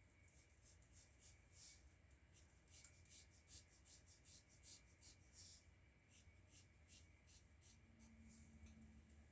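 Faint scratching of a pencil sketching on drawing paper: a run of short, quick strokes, packed closely for the first six seconds or so and sparser after that.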